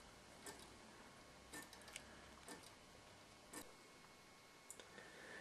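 Replica Harrison wooden-movement precision pendulum clock ticking faintly, about once a second, each tick from its grasshopper escapement.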